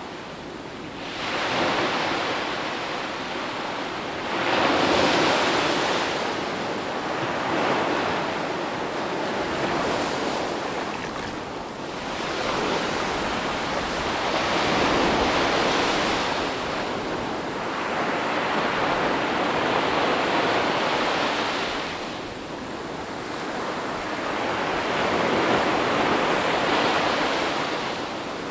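Ocean waves breaking and washing in, the surf swelling and falling every few seconds.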